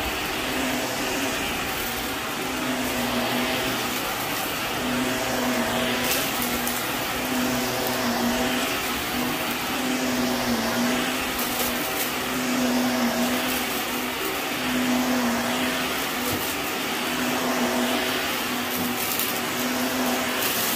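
Shark Navigator upright vacuum running on carpet, its motor note rising and falling every couple of seconds with the push-pull strokes. A few sharp clicks come as bits of debris are sucked up.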